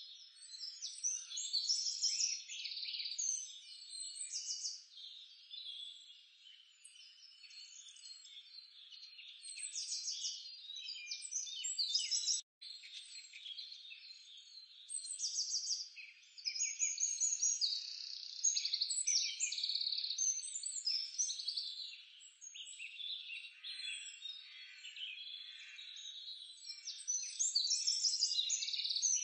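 An outdoor chorus of high chirping and trilling calls, uneven and swelling and fading, with short rising and falling chirps on top. It cuts out for an instant about twelve seconds in.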